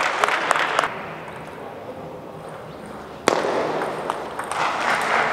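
Table tennis ball struck hard about three seconds in, starting a rally of sharp clicks that echo in a large hall. Spectators clap and call out at the start and again near the end.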